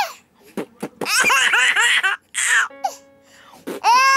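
Toddler laughing in bursts of rapid, pitched 'ha-ha' syllables, with a breathy pause in the middle. A short electronic tone from the baby's musical activity toy sounds in that pause, and the laughter starts again near the end.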